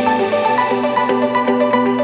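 Background electronic music with sustained synth notes over a steady pulse.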